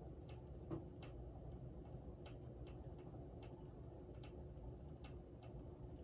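Hampton Bay Portland 52-inch ceiling fan running, with a faint steady motor hum and a light tick about twice a second.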